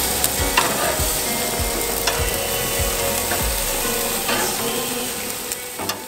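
Marinated chicken sizzling over the flames of a gas grill, with a few clicks of metal tongs among the pieces.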